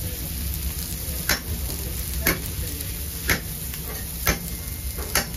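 Fish fillets sizzling steadily on a hot grill, with sharp metallic clicks about once a second as metal tongs and a knife handle the fillets.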